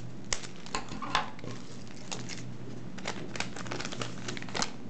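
Trading cards and foil booster-pack wrappers being handled: irregular light rustles, crinkles and clicks as cards are slid and flicked through by hand.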